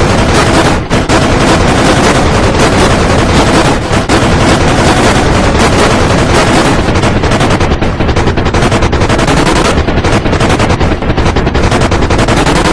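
Loud, heavily distorted emergency alert alarm remix: a dense, clipped wall of noise with rapid crackling stutters, the alarm tones buried under layer upon layer of distortion.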